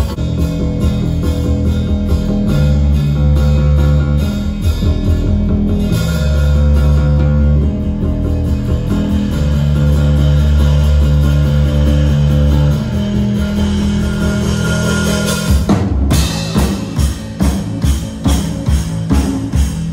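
Music with guitar, bass and drums playing a steady beat; about sixteen seconds in it changes to a choppier, more percussive rhythm.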